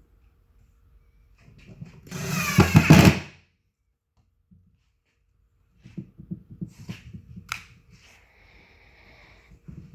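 A power drill-driver runs in one loud burst of about a second and a half, about two seconds in, driving a screw into the cabinet. Later come scattered knocks and a sharp click as the parts are handled, and a short steady high whine near the end.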